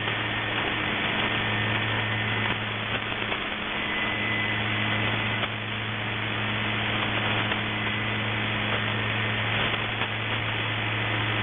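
Shortwave radio static: a steady hiss with a low, even mains-like hum under it and a faint high whistle, the sound of an open military shortwave channel between voice messages.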